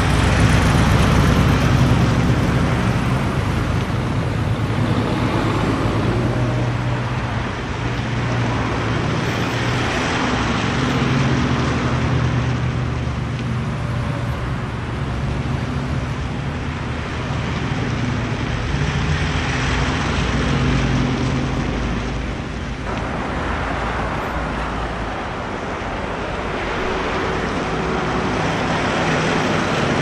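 Street traffic: cars driving past in a steady stream, engine hum and tyre noise swelling and fading as vehicles go by.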